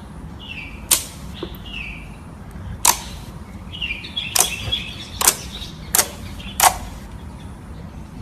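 Slime being played with, giving about six sharp pops and clicks as air pockets burst, irregularly spaced, over a steady hiss. Short chirps sound faintly in the background.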